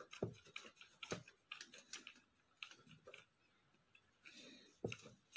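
Faint, irregular light clicks and taps with soft rustles between them, a few each second at times and otherwise near silence.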